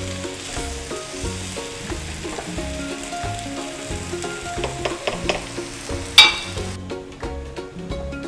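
Rice and mixed vegetables sizzling in a nonstick pot as they are stirred and tossed with a slotted spoon, with a few light clicks and scrapes of the spoon. One sharp knock comes a little past six seconds in, and the sizzling cuts off abruptly soon after.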